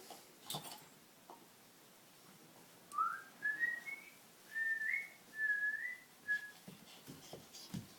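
A dog whining in a run of short, high notes that step upward in pitch and then waver, lasting about three seconds mid-way through. A few short knocks come near the start and near the end.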